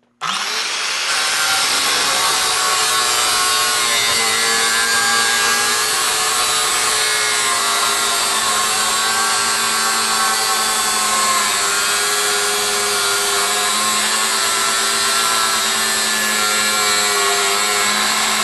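DeWalt angle grinder with a cut-off wheel starting up and then cutting steadily into the metal case of a large pulse capacitor: a steady motor whine over the hiss of the wheel grinding through metal, its pitch wavering a little as it bites.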